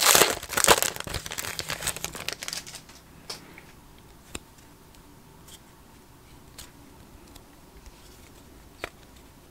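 Foil wrapper of a trading-card pack crinkling and tearing as it is pulled open, loud for the first two or three seconds and then fading out. After that only a few faint clicks.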